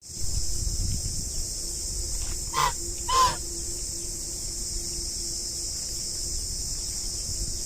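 A duck quacking twice, two short calls a little over half a second apart, over a steady high hiss.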